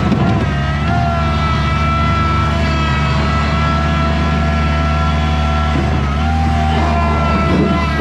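Bobcat skid steer's engine running steadily, its pitch shifting slightly about a second in and again around six seconds in.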